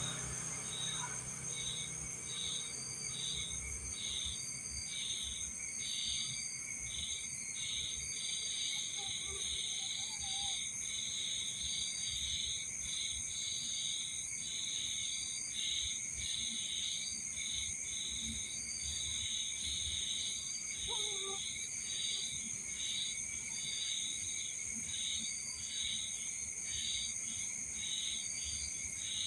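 Night insects: crickets chirping in a steady pulse about twice a second, over a continuous high-pitched insect drone.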